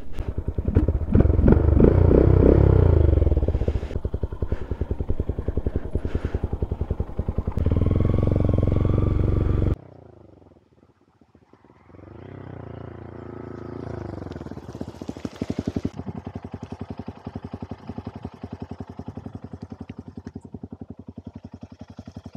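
Honda Grom's 125 cc single-cylinder engine under way, loud and revving up and down through the gears. It cuts off abruptly about ten seconds in, then the engine is heard again more faintly, rising once in pitch and then running steadily.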